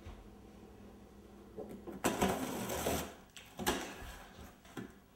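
A cardboard box being torn open: two harsh ripping strokes of tape and cardboard, the first about a second long starting two seconds in, the second shorter a moment later.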